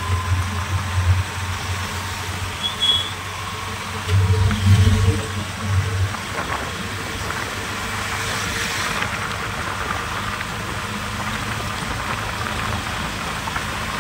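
Engine and road noise of a moving vehicle heard from on board, with a heavier low rumble over the first six seconds that settles into a steady drone.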